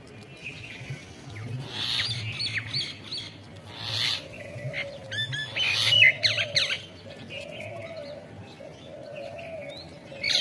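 Wild birds chirping in quick clusters of short high notes, loudest about six seconds in. From about halfway on, a lower wavering call repeats.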